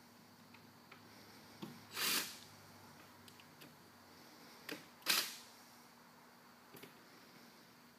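Cordless drill-driver running in two short bursts about three seconds apart, driving screws, each burst preceded by a small click.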